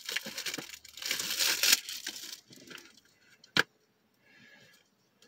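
Plastic Blu-ray case being handled: rustling and scraping for the first couple of seconds, then a single sharp click about three and a half seconds in.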